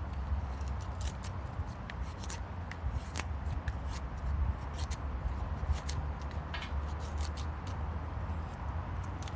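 A knife carving a feather stick: short, irregular scraping strokes as thin wood curls are shaved off a stick.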